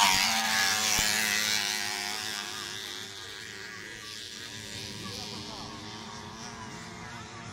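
Motocross bike engine passing close and fading away over the first few seconds. Then more distant dirt-bike engines buzz on the track, rising and falling in pitch.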